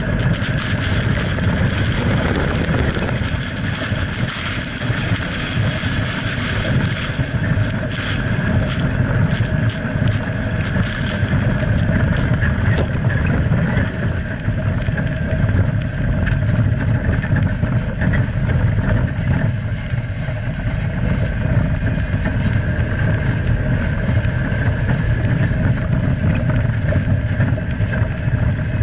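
Jeep Wrangler JKU Rubicon driving off-road, heard from under the chassis: a steady rumble of tyres, drivetrain and engine with wind on the microphone. Scattered sharp clicks come through in the first half.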